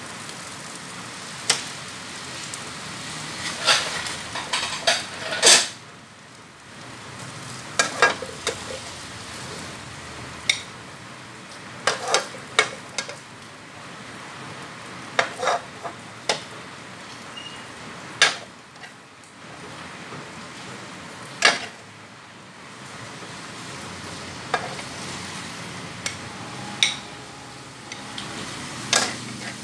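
A metal spatula scraping and clanking against a steel wok in irregular strokes as fried rice is scooped out into a bowl, over a faint sizzle from the hot wok.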